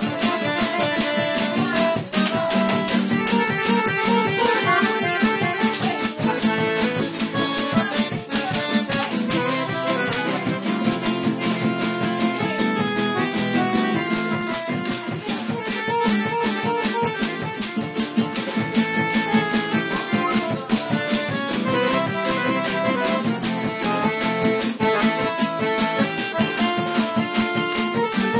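Lively dance music with a fast jingling percussion beat under a melody.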